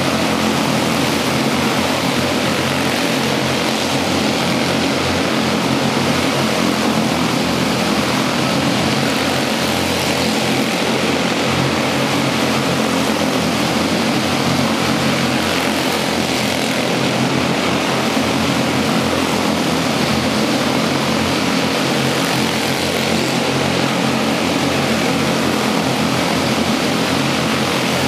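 Several quarter midget race cars' small single-cylinder engines running together at racing speed, a steady dense buzzing drone with no break.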